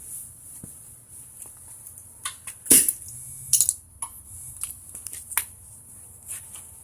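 Scattered clicks and knocks of hand tools and parts being handled, with one sharp knock about three seconds in and a few lighter taps after it.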